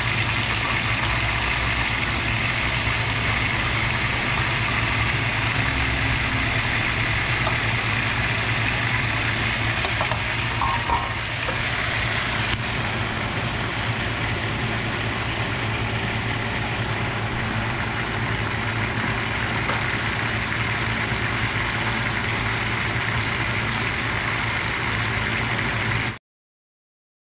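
Hot oil sizzling steadily as a whole fish deep-fries in a wok, over a steady low hum. A brief clink about halfway through, and the sound cuts off abruptly about a second before the end.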